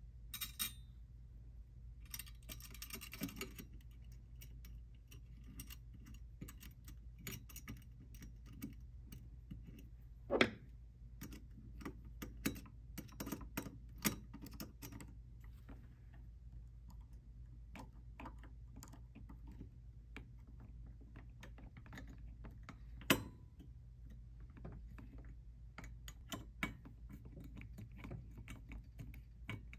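Screwdriver turning the mounting screws of a metal bias binder attachment on a sewing machine bed: many small metallic clicks and scrapes, with two louder knocks along the way.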